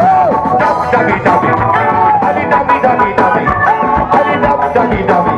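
Live Mauritian sega music from a concert band, with a steady drum beat under a melodic line.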